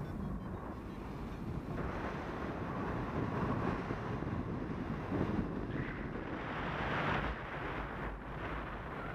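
Wind rushing over the microphone of a paraglider pilot in flight, an uneven roar of airflow that swells about seven seconds in.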